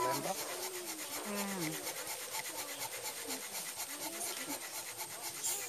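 Fire plough: a wooden stick rubbed rapidly back and forth along a groove in a wooden base, a dry rasping scrape of wood on wood, building friction heat to make an ember.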